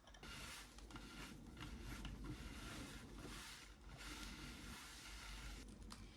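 Faint household handling noise: a series of scraping strokes, several lasting about a second each.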